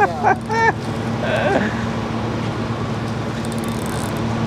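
Boat engine idling with a steady low hum, under a haze of wind and water noise; a man's short exclamation cuts in at the very start.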